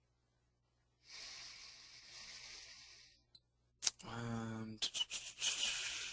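Soft hiss on the microphone, with a few sharp clicks and a brief low 'uh' from a man's voice about four seconds in. A steady hiss follows it.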